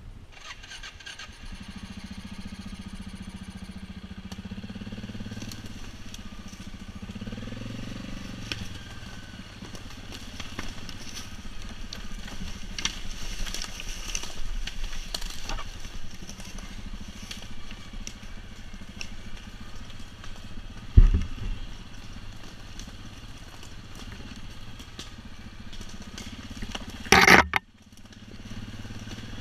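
ATV engine running as the quad rides over the forest floor, with scraping and crunching of leaves and branches under the tyres. A heavy thump comes about twenty seconds in, and a short, very loud burst of noise near the end.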